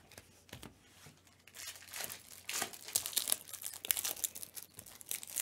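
Gloved hands handling and flipping Prizm football cards: soft, irregular crinkling and rustling of the cards and their foil pack wrapper, busier in the second half.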